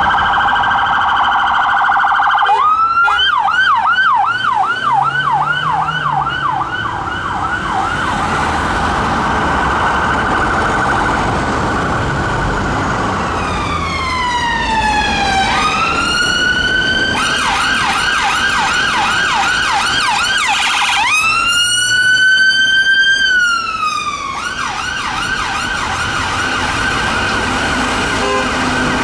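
Electronic sirens of UK emergency vehicles: a police van's siren in a fast yelp, then about halfway in an ambulance siren that changes between slow falling and rising wail sweeps and the fast yelp.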